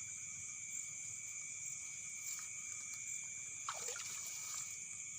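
Night insect chorus: several steady high-pitched drones. About four seconds in comes one short falling call.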